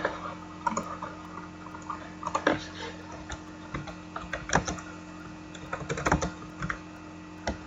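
Typing on a computer keyboard: short clicks in small irregular runs with pauses between them, over a faint steady hum.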